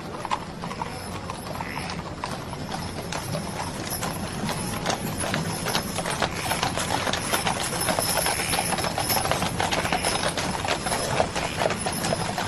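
Hooves of many horses clattering over hard desert ground as a band of riders moves along. The beat is dense and irregular and grows slowly louder.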